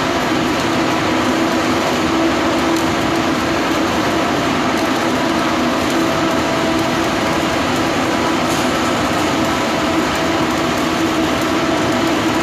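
Steady, loud welding-work noise inside a large steel tank: a continuous hiss with a low, even hum under it and no break.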